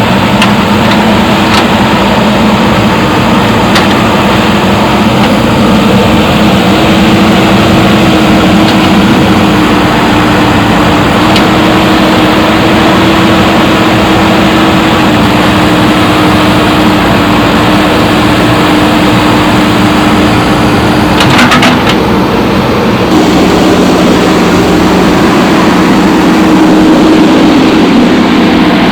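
JCB backhoe loader's diesel engine running steadily, its pitch shifting slightly as it works. A few sharp knocks cut through, with a quick cluster of them about 21 seconds in.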